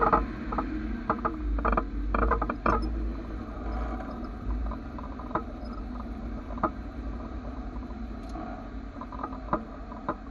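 Low rumble from the underside of a BMW 323ci, with sharp knocks and clicks: a quick cluster in the first few seconds, then single ones every second or two as the rumble fades.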